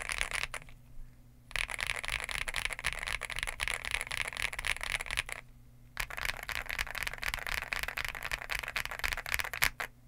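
Fast typing on a NuPhy GEM80 mechanical keyboard with a POM plate, silicone Bean (70) mounting, NuPhy Mint switches and MSA DS PBT keycaps: a dense run of key clacks. The typing stops briefly twice, about a second in and again at about five and a half seconds.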